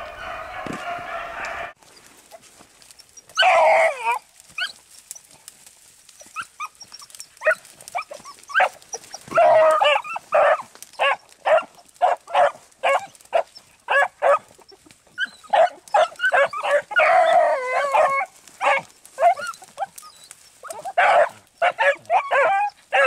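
Beagle hounds baying on a rabbit's scent trail: a held, drawn-out chorus of voices at first, then a long run of short, repeated barks and bawls, several at a time, as the pack works the line through thick cover.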